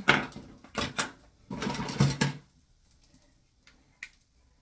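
Makeup containers and tools being handled and rummaged through on a counter: sharp clicks and taps at first, a denser clatter for under a second in the middle, then a few faint clicks.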